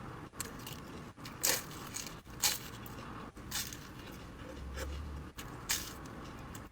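Bites into a crisp, flaky puff-pastry tart, chewing with a few short crunchy crackles spread through.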